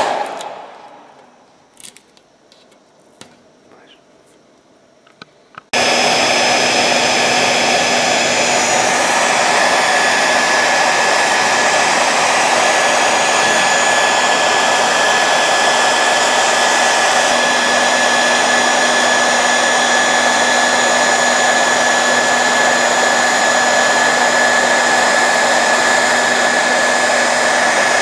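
Ordinary handheld hair dryer switched off and spinning down, then a few seconds of quiet with a few faint clicks. About six seconds in it is switched back on and runs steadily, blowing hot air with a thin high whine.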